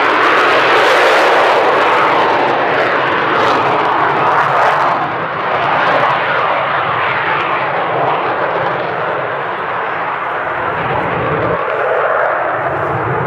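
Lockheed Martin F-35B's F135 afterburning turbofan, a loud jet roar with a slowly sweeping, phasing quality as the fighter passes low. The highest hiss drops away about five seconds in as the jet draws off.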